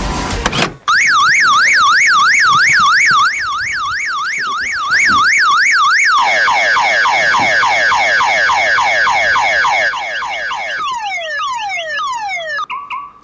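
Car alarm going off about a second in and cycling through its tones: a fast up-and-down warble, then rapid falling chirps about four a second, then slower falling sweeps, ending in a brief steady tone.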